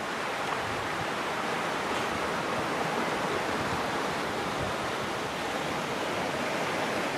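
Steady rushing of flowing water, an even hiss with no breaks or distinct events.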